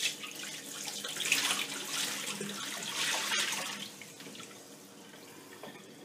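Murky, rust-laden salt water poured from a glass bowl into a stainless steel sink, splashing for about four seconds and then tailing off: the spent electrolysis bath being emptied.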